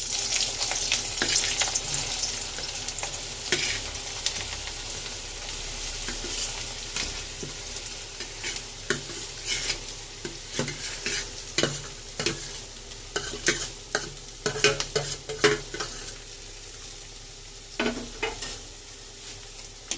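Chopped onions sizzling in hot oil in a pan while a spatula stirs and scrapes, giving repeated sharp clicks. The sizzle is loudest just after they go in and settles down over the following seconds.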